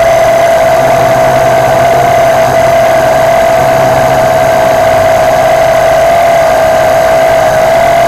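WLToys V262 quadcopter's motors and propellers whining steadily in flight, recorded from a camera strapped to the airframe. It is one loud, even-pitched whine that wavers only slightly.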